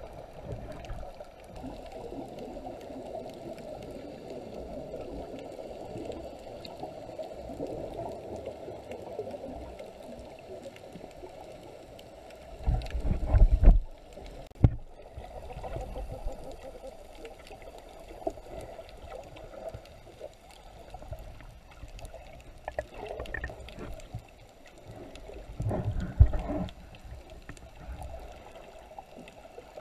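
Muffled underwater water noise picked up by a submerged camera, a steady gurgling wash with two louder low rushes of water, one about halfway through and one near the end.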